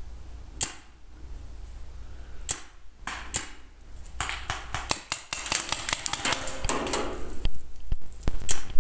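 Paintball markers firing: a few single shots, then rapid strings of shots from about four seconds in.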